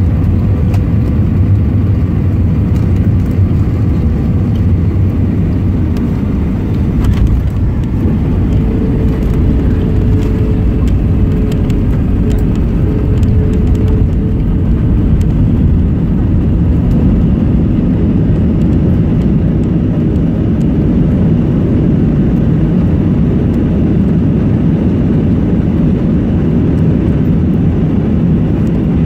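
Airbus A320 cabin noise through a landing: a loud, steady rumble of engines and airflow, a brief jolt about seven seconds in as the wheels touch down, then the rumble of the airliner rolling out on the runway with its ground spoilers up.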